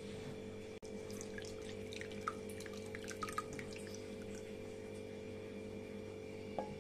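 Sweetened saffron milk pouring from a pan into a bowl over soft paneer discs, with small drips and splashes. A steady hum runs underneath.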